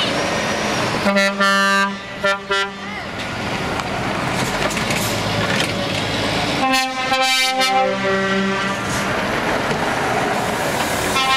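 Heavy trucks pulling away with their diesel engines running, sounding air horns: a long blast about a second in, then two short toots. Just past halfway comes a longer blast of several tones sounding together.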